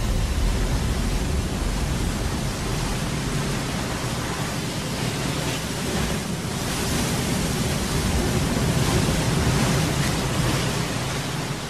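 Steady rushing noise of sea surf, swelling and easing slowly, fading out at the end.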